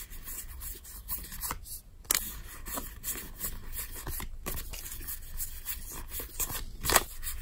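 Trading cards sliding against one another as they are flicked through one by one in the hand: a run of short, irregular papery swishes and flicks, the loudest near the end.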